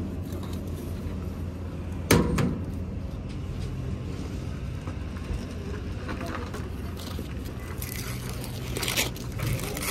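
Aluminium foil crinkling as a foil-wrapped toasted sandwich is unwrapped, in quick crackly bursts over the last few seconds. A single sharp knock about two seconds in, over a steady low hum.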